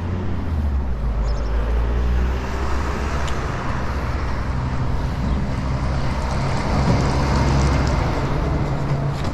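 Road traffic passing close by: a steady low engine rumble with tyre and road noise that swells about six to eight seconds in, as a vehicle goes past.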